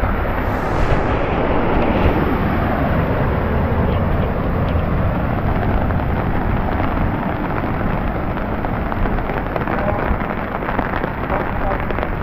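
Heavy rain pouring steadily, with wind buffeting the microphone in a deep rumble.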